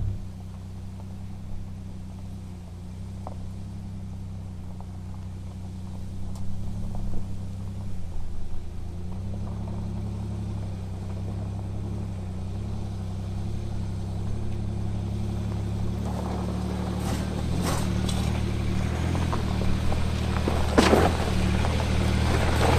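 Toyota LandCruiser V8 turbo-diesel engine running steadily at low speed on a rough bush track, with a few sharp knocks and rattles in the last several seconds.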